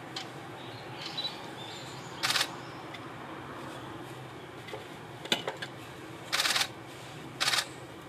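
A flock of azure-winged magpies at a shallow pool, making three short, loud, harsh bursts of noise about two seconds in and twice near the end, with a few faint clicks between.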